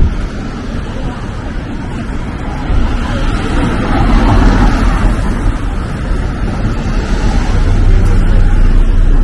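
Downtown street traffic: vehicles passing with tyres hissing on wet pavement, the rumble and hiss swelling from about three seconds in and staying loud.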